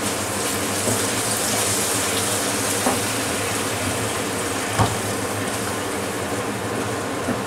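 Hot water poured in a thin steady stream into a pan of thick cashew-paste gravy, splashing as it goes in. A wooden spatula stirring the gravy knocks sharply against the pan a few times, loudest about five seconds in.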